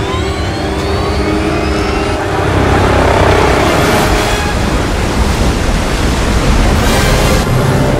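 A loud, dense mix of action-film sound effects: engine-like noise, with several rising tones over the first two seconds.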